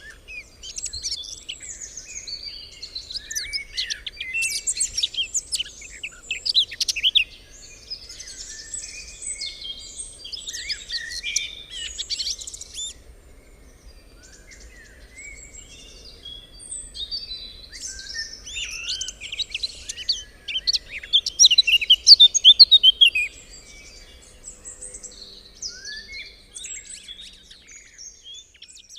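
Several birds singing and chirping together in a busy chorus of quick twittering calls and trills. It thins out for a few seconds near the middle, and is loudest and densest with rapid trilling a little past two-thirds of the way through.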